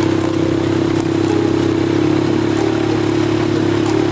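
ATV engine running steadily at a constant speed.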